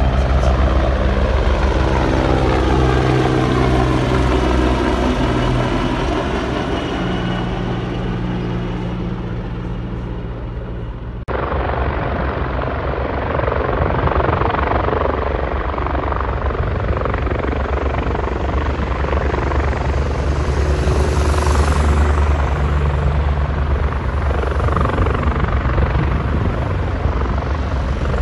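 Bell 430 twin-turbine helicopter flying past, its turbine whine and rotor tones falling in pitch as it goes by. About eleven seconds in, the sound cuts abruptly to the helicopter close by, hovering low and setting down on a helipad with a steady, heavy rotor beat.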